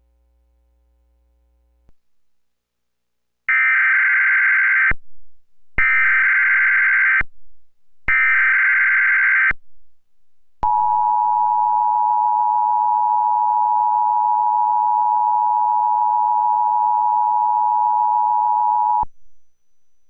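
Emergency Alert System signal from a Trilithic EASyPLUS cable alert unit: three short bursts of digital SAME header data, each about a second and a half long, then the two-tone attention signal held steady for about eight seconds, opening a Required Monthly Test.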